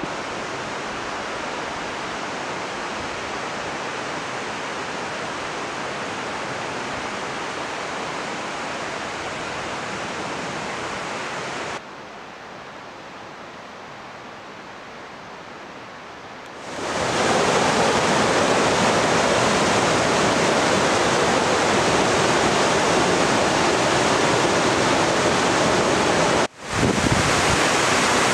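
Steady rushing noise that drops to a quieter hush for a few seconds partway through, then gives way to the much louder rush of a rocky mountain river flowing over stones. Near the end the sound drops out very briefly.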